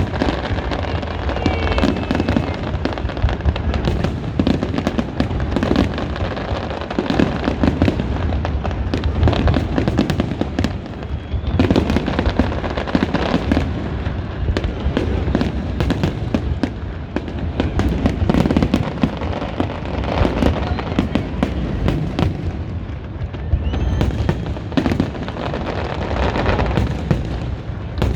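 A fireworks display: a dense, continuous barrage of shells bursting and crackling with heavy low booms, and a few whistling rockets near the start.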